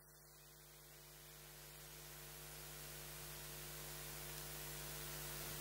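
Steady electrical hum with a hiss that grows slowly louder, with no other sound.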